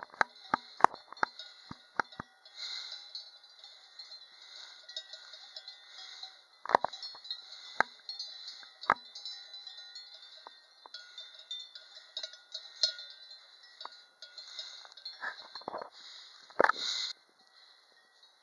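A metal bell clanking in irregular single strikes, each ringing briefly: a quick cluster at the start, a few more scattered through the middle, and the loudest near the end. A steady high hiss runs underneath.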